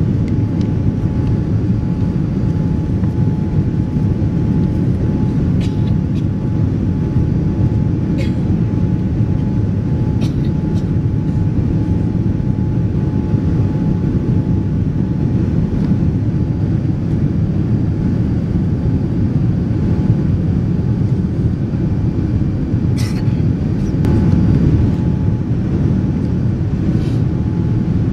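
Steady low rumble inside the cabin of a Boeing 787-10 in flight, its Rolls-Royce Trent 1000 engines and the airflow heard from a window seat, with a faint steady hum and a few light clicks.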